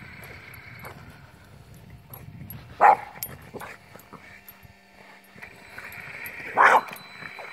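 Boston terrier barking twice while chasing an RC truck: one short bark about three seconds in and another near the end.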